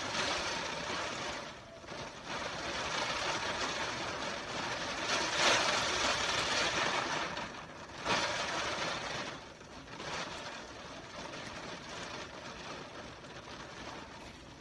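Hurricane wind and rain blowing outside a window, a noisy rush that swells and falls in gusts, with sudden surges about two seconds and eight seconds in, easing off near the end.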